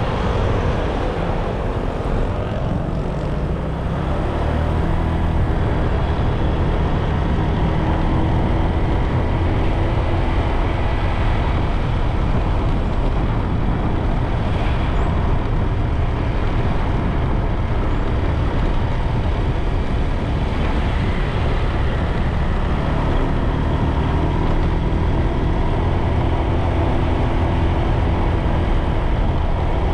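Motorbike engine running steadily under way, its pitch shifting a little as it climbs, with wind rushing over the microphone.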